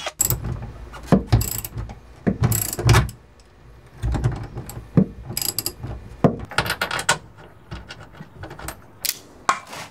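Ratchet wrench clicking and metal hardware clinking as an M8 bolt is tightened into a plus nut in a truck bed, in short irregular bursts with pauses between.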